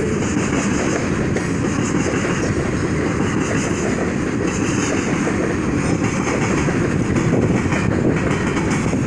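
Freight train of covered hoppers and open hopper cars rolling past, a steady, even rumble of steel wheels on the rails.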